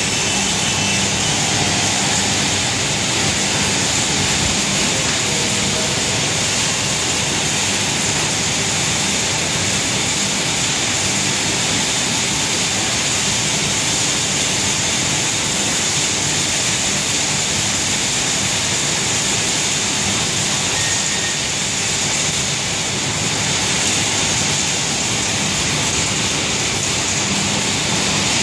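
Steady loud roar and hiss of industrial dust-extraction fans and rushing air, unchanging throughout.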